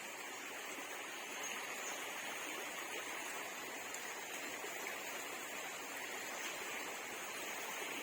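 Creek water flowing, a steady, even rush.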